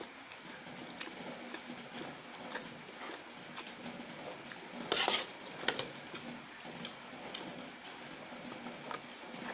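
Close-up eating of chicken noodles: wet mouth clicks of chewing and light clinks of a fork against the plate, with one short, loud rush of noise about halfway through.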